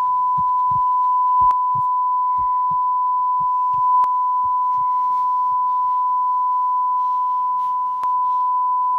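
A steady, high-pitched pure sine tone that does not waver, a ringing-in-the-ears effect. Under it are low heartbeat-like double thumps about once a second, fading out about halfway through.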